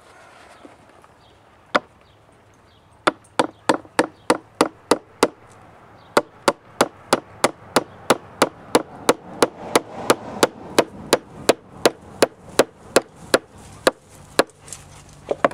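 Sharp tool strikes on the old wear ring of a Sea-Doo jet pump as a section of the ring is cut out to relieve its pressure. One strike comes first, then a run of evenly spaced strikes, about three a second, with a short pause after the first several.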